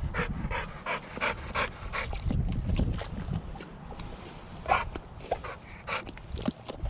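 A dog panting hard and fast, close by, in a steady run of quick breaths.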